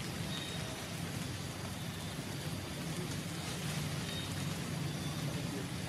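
Steady low rumble and hiss of outdoor background noise, with a few faint, short, high chirps.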